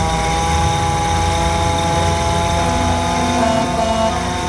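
Mechanical siren on a 1922 fire truck, worked by hand, wailing at a nearly steady pitch over a low rumble.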